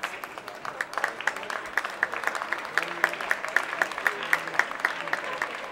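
A crowd of legislators applauding in a large hall, with one close pair of hands clapping sharply in a steady rhythm about four times a second.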